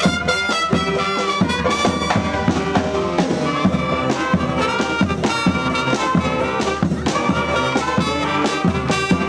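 Street brass band playing live: trumpets and trombones play the melody over a steady drum beat.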